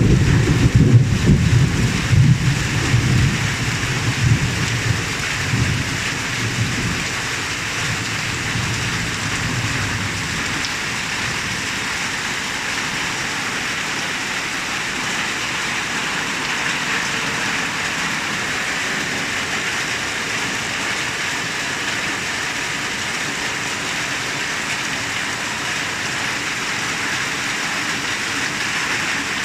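Heavy rain falling steadily, an even hiss of drops on surfaces. A low rumble of thunder runs through roughly the first ten seconds and fades away.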